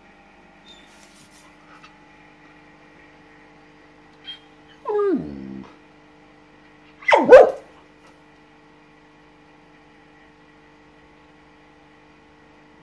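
Samoyed dog, worked up at a lizard, gives two short vocal outbursts: a whine-like call that falls in pitch about five seconds in, then a louder yelping bark about two seconds later.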